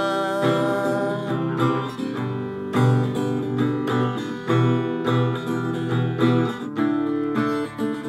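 Acoustic guitar strummed in a steady rhythm, an instrumental bar between sung lines. In the first second the tail of a held sung note fades out.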